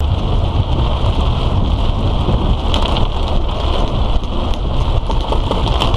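Heavy monsoon rain falling steadily on a car, a dense patter of drops, over a constant low rumble from the moving vehicle.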